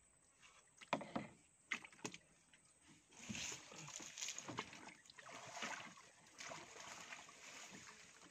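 A few sharp knocks, then water splashing and sloshing from about three seconds in, as a fish trap is handled from a small boat.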